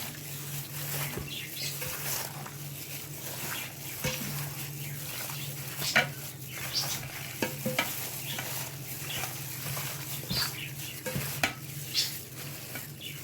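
Chicken curry sizzling and frying in a pan while a spoon stirs it, knocking against the pan now and then.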